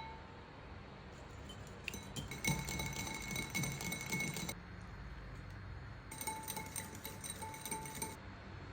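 Rapid clinking of a utensil against a glass mixing bowl, in two bouts of about two seconds each, with a steady ringing tone through each bout.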